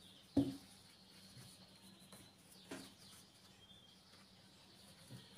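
Quiet room with soft handling noise from crocheting with a metal hook and yarn: a short sharp click about half a second in and a fainter one a little before three seconds.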